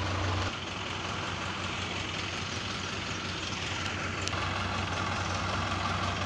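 Diesel tractor engine running steadily at low revs, a low hum that thins about half a second in and fills out again about four seconds in, with one sharp click around the same point.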